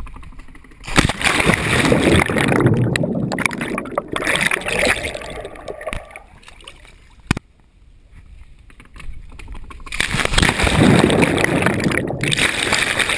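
Splash of a body and a handheld action camera plunging into a swimming pool about a second in, followed by muffled underwater rushing and bubbling picked up through the camera's waterproof housing. The water noise is loud, eases off in the middle with a single sharp click, and rises again near the end.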